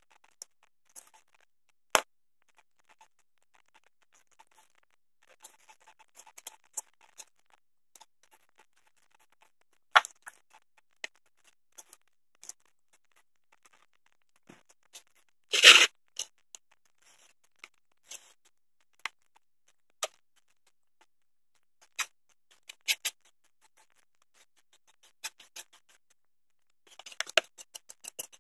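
Scattered light clicks and taps of J-B Weld epoxy tubes being squeezed out and handled over a plastic lid, with one louder clatter about halfway through. Near the end a stick scrapes quickly against the lid as the two-part epoxy starts being mixed.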